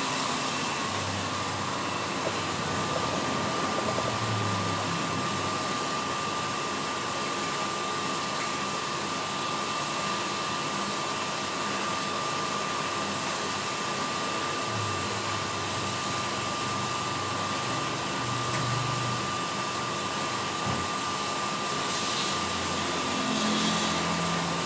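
Drum coffee roaster running in its cooling stage, the cooling-tray fan drawing air through freshly roasted beans while the agitator arm stirs them: a steady rush of fan noise with a thin steady tone over it.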